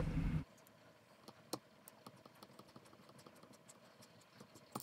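Faint, scattered small clicks and ticks of a precision screwdriver and tiny screws being handled while the screws holding a DJI Spark's gimbal camera are taken out. A louder steady hum cuts off abruptly about half a second in.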